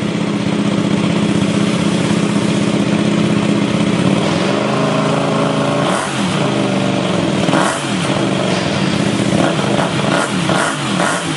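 Comet 250 GTR motorcycle engine with an aftermarket sport exhaust, running loud at steady revs. About six seconds in, its pitch starts dipping and climbing again, first twice and then several times in quicker succession.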